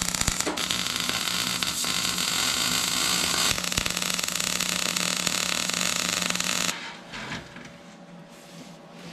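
MIG welder arc crackling as it welds a joint on a steel exhaust pipe, breaking off briefly twice and then stopping suddenly about two-thirds of the way through, followed by quieter sounds of the pipe being handled.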